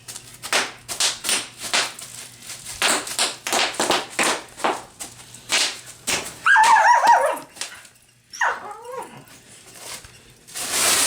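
Bubble wrap crackling and popping in quick, irregular snaps as a dog bites and tugs at it, then the dog gives a high, wavering whine and a short falling whimper, and the plastic crackles again at the end.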